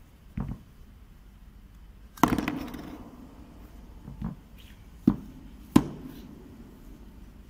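Stainless steel ball valve parts knocking on a tabletop as they are handled and set down: five separate knocks, the loudest about two seconds in with a short ring after it.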